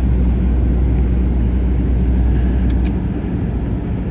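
1994 Jeep Grand Cherokee ZJ's 5.2-litre (318) V8 running steadily, a low, even engine sound with a couple of faint ticks near the middle.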